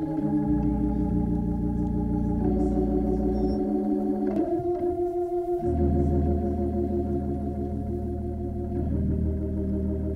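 Organ playing slow, held chords over a deep bass, changing chord every couple of seconds, the bass dropping out for about a second midway.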